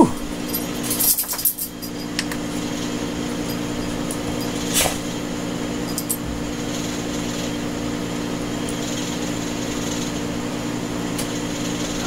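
Steady hum of electric blower fans running, holding several fixed low tones, with one faint tick about five seconds in.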